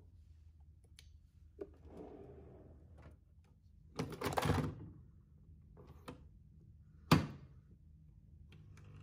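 A capsule coffee machine being loaded by hand: a few small clicks and knocks, a louder clatter of the capsule going in and the lid lever being worked about four seconds in, then a single sharp click a little after seven seconds as the brew button is pressed. A faint low hum runs underneath.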